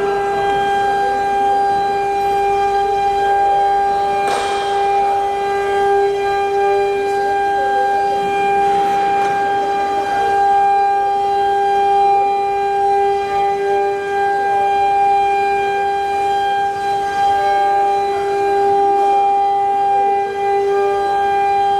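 CNC router spindle running with a steady, unchanging whine, with a brief knock about four seconds in.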